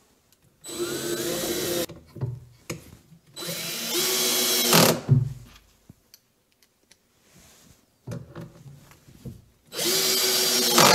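Ozito cordless drill-driver running in three short bursts, driving short screws through a steel corner bracket into the cabinet panel. The runs come about a second in, around four seconds in, and near the end, with small handling clicks between them.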